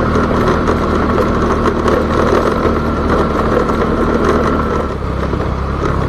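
Motorcycle engine running steadily while riding over a rough gravel road, with scattered clicks from stones under the tyres. The engine note drops slightly about five seconds in.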